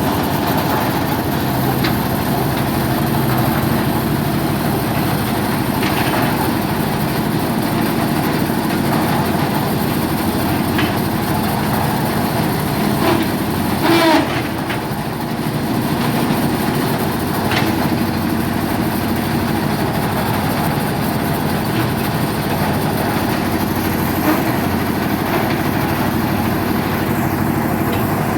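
Air-cooled diesel engine of a concrete mixer machine running steadily, with a few scattered knocks. A brief, louder clank comes about halfway through.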